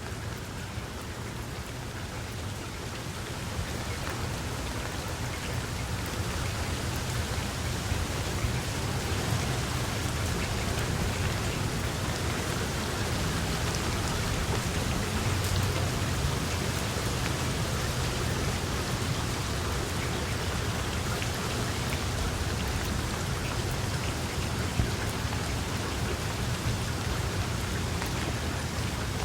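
Steady rain falling: a dense, even hiss of drops with a low rumble underneath, growing a little louder over the first few seconds.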